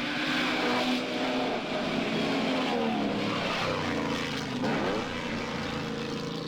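Mercedes-Benz Grand Prix racing car engines running hard, their pitch climbing and dropping, with a sharp fall-and-rise in pitch about four to five seconds in.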